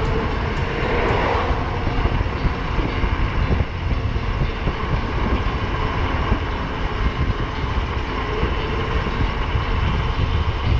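Wind buffeting the microphone and road rumble from an electric bike being ridden at speed, a steady rush with uneven low gusts.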